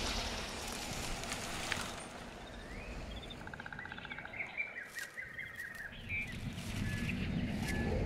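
Forest ambience in a film sound mix: small birds chirping and trilling through the middle, over a soft rustling hiss, with scattered light clicks and a low rumble building near the end.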